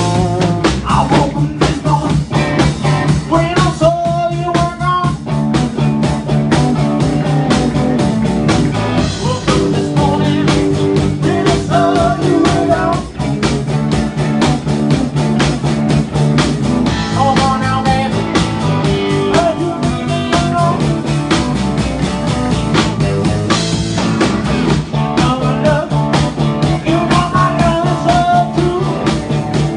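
Live blues-rock trio playing loudly: electric guitar with bending lead notes over electric bass and a drum kit keeping a steady beat.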